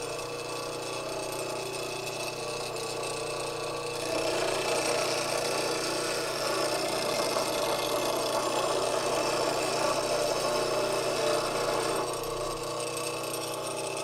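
Bench grinder running steadily. From about four seconds in to about twelve seconds in, a lathe gouge held in a V-arm sharpening jig is pressed to the wheel, adding a louder grinding hiss.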